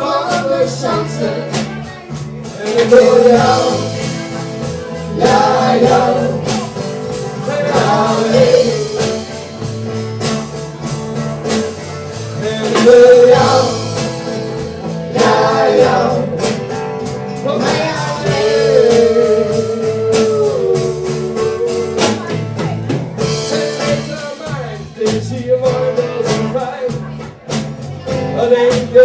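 A live band playing a rock song: singing over strummed acoustic guitars, electric guitar and drums.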